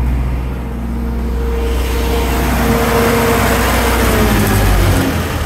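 Spray foam rig's generator engine running, then switched off: its pitch falls and the hum dies away about five seconds in.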